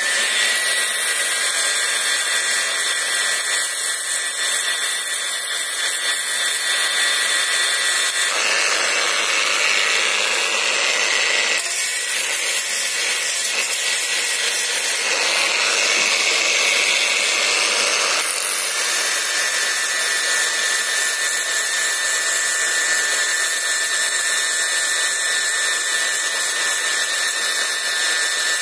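Angle grinder running with a P120 sanding disc on a rubber backing pad, sanding an aluminium alloy wheel rim down to bare metal to clear the oxide film before welding. It is a steady high whine over the hiss of the abrasive, changing tone a few times as the load on the disc varies.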